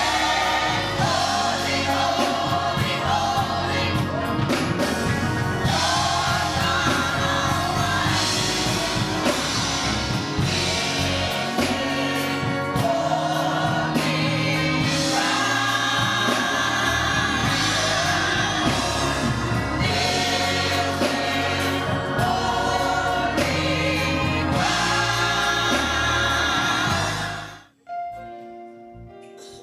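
Gospel choir singing with instrumental accompaniment; the song cuts off suddenly near the end, leaving soft held keyboard chords.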